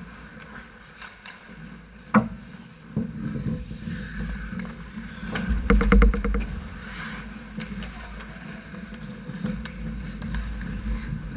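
Ice hockey play heard from a camera on the goal net: skates scraping the ice and sticks and puck clacking. A sharp crack comes about two seconds in, and a loud rapid rattle of knocks about six seconds in as players crowd the net.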